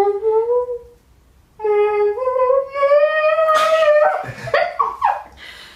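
A high voice humming a tune in long held notes that climb slowly in pitch, breaking into laughter about four seconds in.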